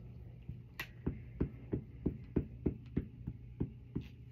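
Hands working a paper cut-out on a table for gluing: a sharp click just under a second in, then about a dozen soft, evenly spaced thumps, roughly three a second, over a steady low hum.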